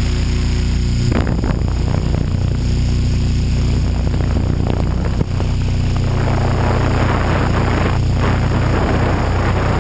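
HK600GT radio-controlled helicopter in flight, heard through its onboard GoPro: a steady low hum from the rotors and drivetrain, with rushing wind noise on the microphone that comes up about a second in and again over the last few seconds.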